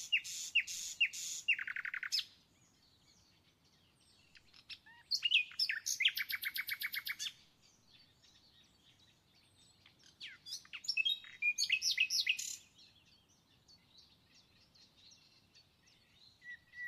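A small songbird singing in three bouts of quick chirps and rapid trills, a few seconds apart.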